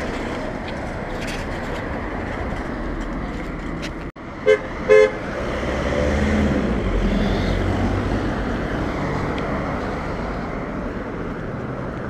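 A car horn gives two short toots about half a second apart, a friendly greeting to someone on the pavement. The car then drives past over steady street traffic noise.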